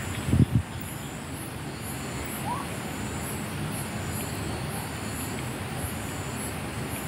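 Steady outdoor background noise with faint high chirps repeating about once a second. Two short low thumps about half a second in are the loudest sound.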